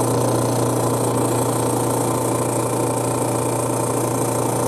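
Robinair RG3 refrigerant recovery machine running with a steady low hum as it pumps R134a out of a car's A/C system into the recovery tank.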